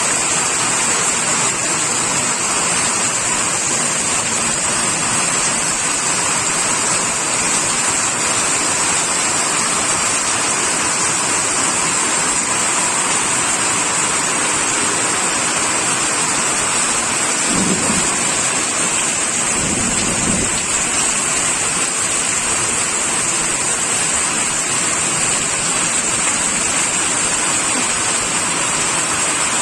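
Steady rain, a dense even hiss, with a low rumble of thunder lasting a few seconds a little past halfway.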